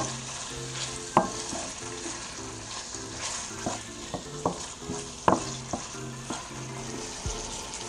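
Raw chunks of chicken sizzling in butter in a frying pan over medium-high heat, freshly added and searing. A wooden spoon stirs them, knocking against the pan a few times, most sharply about a second in and again near the middle.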